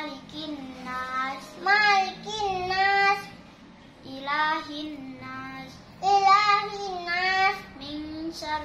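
A young girl's voice chanting Arabic Qur'anic recitation aloud while standing in prayer, in several drawn-out melodic phrases separated by short pauses.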